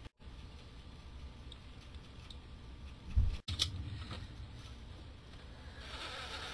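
Faint handling noise as the clutch hub nut is spun on by hand, then a short thump and a sharp metallic click about three seconds in as a torque wrench is set on the nut.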